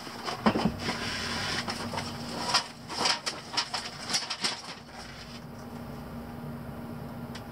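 Tools and small objects knocking and rattling as someone rummages through a workbench looking for calipers, with a run of sharp knocks in the first few seconds that then dies away. A faint steady hum runs underneath.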